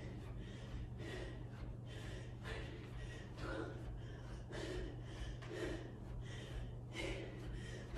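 A woman breathing hard and rhythmically while doing bicycle crunches, with short forceful exhalations about every half second to second. A steady low hum runs underneath.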